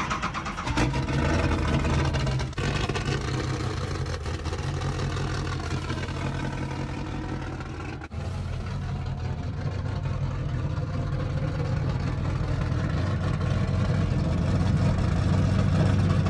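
Off-road race vehicle engine running hard under power, steady and loud, growing louder toward the end. The sound breaks off briefly twice.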